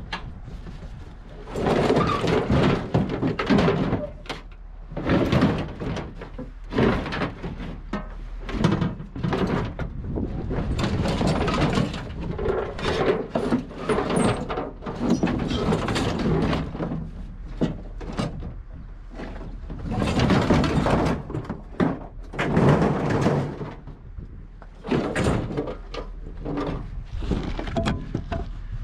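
Scrap metal being unloaded by hand from a truck bed: irregular scraping, rattling and clanking of wire frames and sheet metal, one piece after another.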